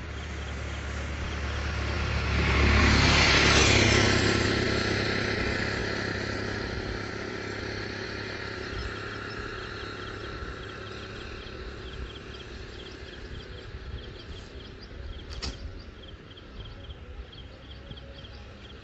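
A road vehicle passes close by: its noise swells to a peak about three to four seconds in, then fades away.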